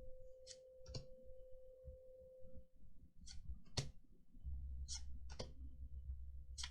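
Magic: The Gathering trading cards being handled and leafed through: faint, irregular clicks and slides of card on card, about one a second. A faint steady hum fades in the first half, and a low rumble comes in about halfway.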